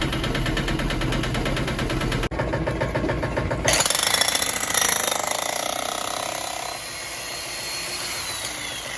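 Digger engine running steadily while it digs a trench, then about four seconds in a sudden loud, harsh scraping and clattering that fades away.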